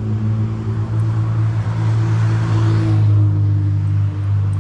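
A motor vehicle passing by, its noise swelling to a peak about three seconds in and fading, over a steady low engine hum.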